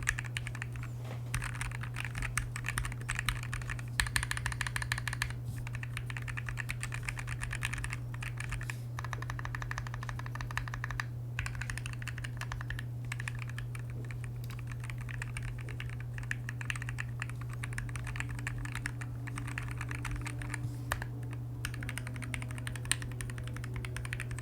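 Typing on a Quarkeys Z40 40% ortholinear keyboard fitted with Durock black switches and double-shot PBT XDA keycaps: a fast, continuous run of key clacks with a few brief pauses, over a steady low hum.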